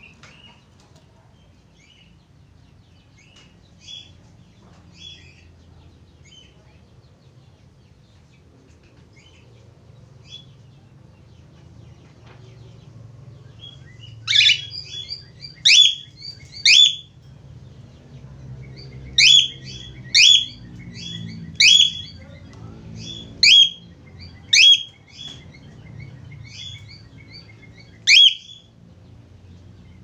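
Cockatiel chirping softly, then from about halfway through giving a string of about ten loud, sharp calls, each a quick sweep in pitch, spaced a second or so apart.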